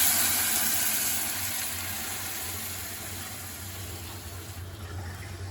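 Loud sizzling hiss from a hot gumbo pot, strongest at the start and slowly dying down, over a steady low hum.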